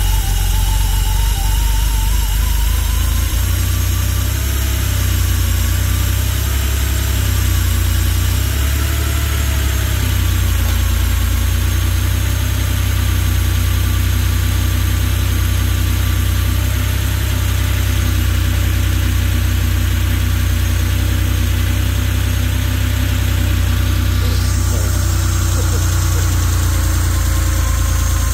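Porsche 911's air-cooled flat-six engine idling just after a cold start. Its speed rises over the first few seconds and wavers for several seconds more before settling into a steady fast idle as it warms.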